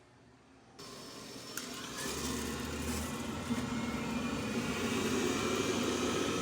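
A steady mechanical hum and rush with faint steady tones, coming in abruptly about a second in and getting louder over the next second or two.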